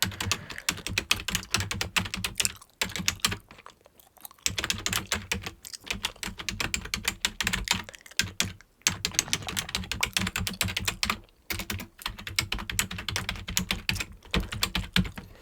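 Fast typing on a computer keyboard: rapid keystrokes in long runs, broken by short pauses several times.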